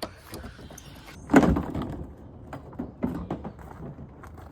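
Knocks and clatter from handling plastic car body trim: one loud knock about a second and a half in, then a few softer knocks.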